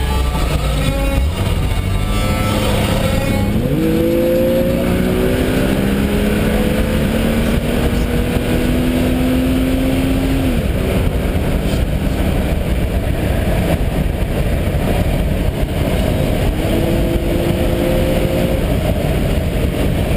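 Jaguar car engine heard from inside the cabin while racing. Its revs jump up a few seconds in and climb slowly, then fall away sharply about halfway through, and rise again near the end, over steady road and wind rush.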